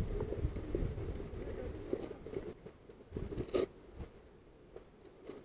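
Footsteps and gear rustling as an airsoft player moves on foot across dirt and grass. After about two and a half seconds it turns quieter, with a single sharp click about three and a half seconds in.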